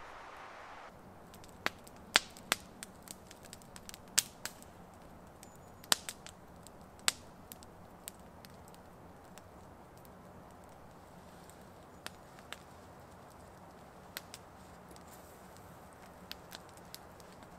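Wood campfire crackling, with sharp, irregular pops that come thickest in the first several seconds and more sparsely after.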